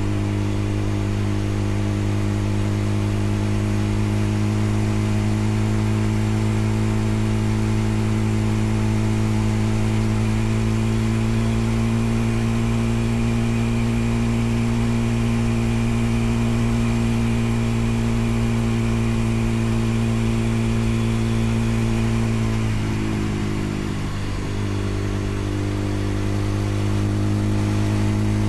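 Motorcycle engine running at a steady cruising speed while riding. Near the end the engine note briefly drops and roughens, then picks back up to the same steady pitch.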